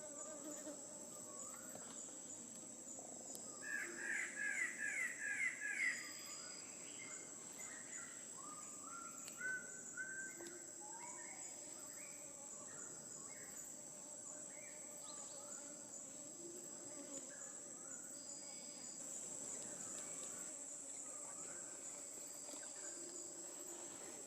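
Forest ambience with a steady high insect drone and scattered bird calls. About four seconds in, a bird gives a loud run of about seven quick notes that rise slightly in pitch.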